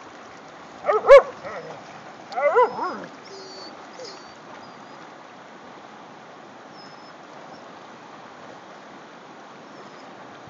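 Dog barking: two sharp barks about a second in, then a quick run of several more just after two seconds, over the steady noise of flowing river water.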